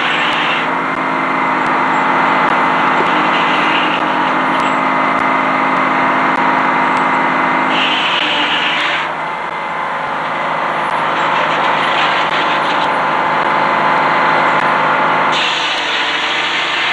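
Antique Frick sawmill running: a constant loud mechanical din of the mill's power unit and drive, with steady tones. Its character shifts abruptly a few times.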